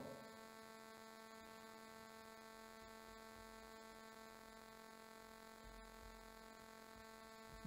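Near silence with a faint, steady electrical hum carrying a row of even overtones.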